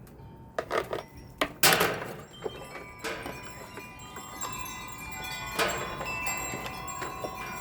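Wind chimes ringing, struck several times in irregular gusts, their overlapping metallic tones hanging on between strikes; the sharpest strike comes a bit under two seconds in.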